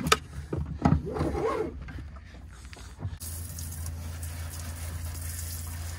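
Knocks and handling clatter, then, about three seconds in, a hose nozzle starts spraying water with a steady hiss over a low steady hum.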